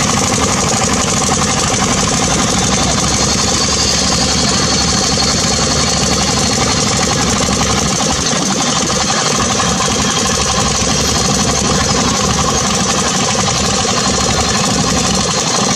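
Heavy excavator diesel engines running steadily at idle.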